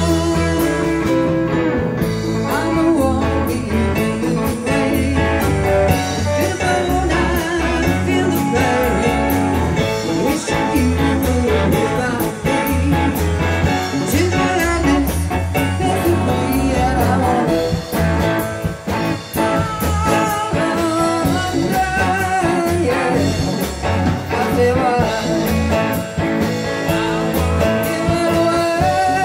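Live band music: a woman singing into a microphone, backed by a Roland RD-300GX digital stage piano and an electric guitar.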